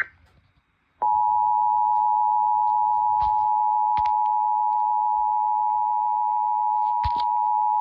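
Emergency alert attention signal: a steady two-note tone near 1 kHz, the 853 Hz and 960 Hz pair, starting about a second in after a short gap. It is the tone sounded before a severe thunderstorm warning is read.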